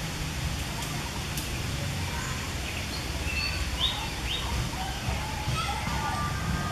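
Steady outdoor background rumble with a few short, high-pitched animal chirps about three to four seconds in, and fainter ones near the end.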